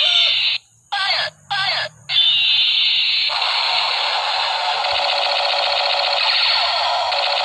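Electronic toy gun sound effects: a falling laser-like 'pew' sweep, two short chirps, another falling sweep, then a continuous loud electronic rattling firing sound that thickens about three seconds in.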